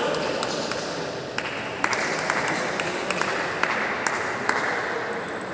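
Crowd noise in a large hall with sharp taps and clicks scattered through, easing off near the end.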